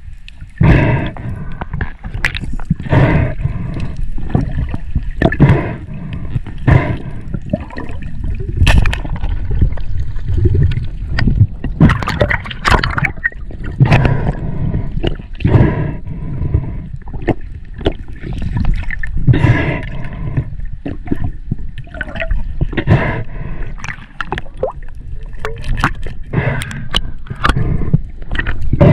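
Water sloshing and gurgling around an underwater camera held at the sea surface, in irregular surges every second or two with crackling bubble noise.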